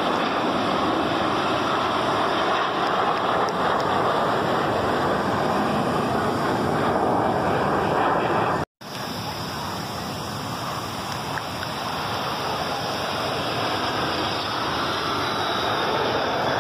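Steady rush of breaking surf and wind with the distant roar of formation jets blended in. The sound drops out for an instant about nine seconds in, then builds slowly as the jets' roar grows louder.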